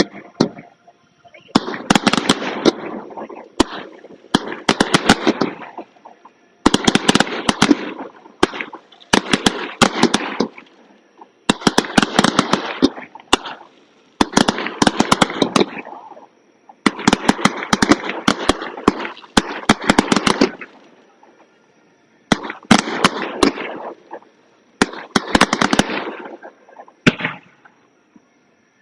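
Fireworks crackling: about nine bursts of rapid sharp pops and cracks, each lasting a second or two, with short gaps between.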